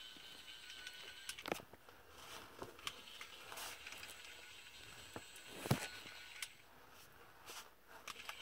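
Faint clicks and knocks from a FurReal Friends Snuggimals Yorkie electronic plush puppy as it moves and is handled, with two sharper knocks, one about a second and a half in and one near six seconds.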